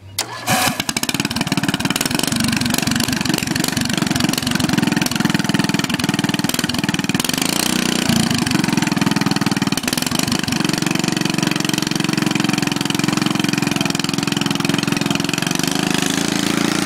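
Racing lawnmower's swapped-in engine starts about half a second in and then runs steadily, its pitch shifting a little around eight and ten seconds in.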